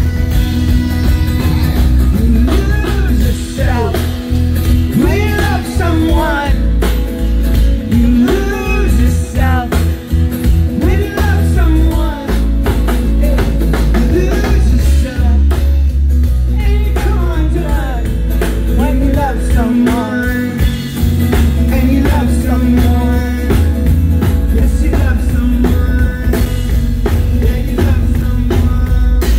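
Live rock band playing a song: acoustic guitar, electric guitar, bass and drum kit, with a sung lead vocal line over a heavy bass.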